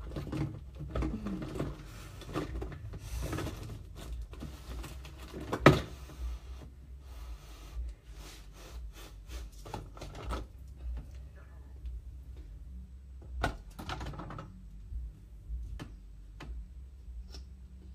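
Scattered clicks, taps and rustles of objects being handled close to the phone's microphone, with one sharp knock about six seconds in and a small room's echo.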